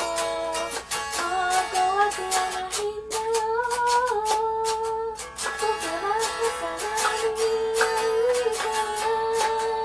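A woman singing a melody while strumming an electric guitar in a steady rhythm.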